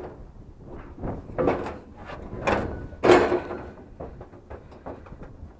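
Heavy metal scrap being stood up and shifted by hand: three loud scrapes and clanks, the loudest about three seconds in with a short metallic ring, then smaller knocks.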